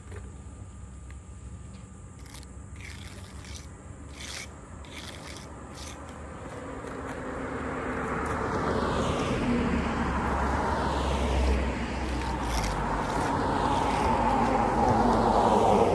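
Cars passing on the road alongside: tyre and engine noise swells up from about six seconds in and stays loud to the end, as one vehicle goes by and another approaches. Before that, a few short clicks and scrapes.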